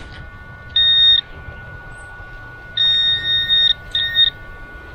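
Handheld metal-detecting pinpointer giving high, steady electronic beeps as it is worked in the dirt of a dug hole: a short beep about a second in, a longer one near the middle and another short one near the end. Each beep signals metal, here more keys buried in the soil. A faint steady tone runs underneath.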